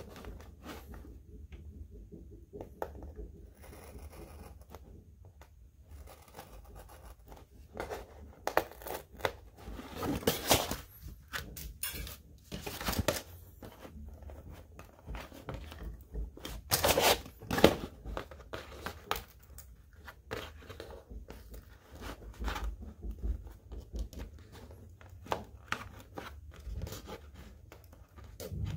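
Clear tape being peeled and torn off a cardboard insert, with the card rustling as hands work at it; a few louder rips come in the middle.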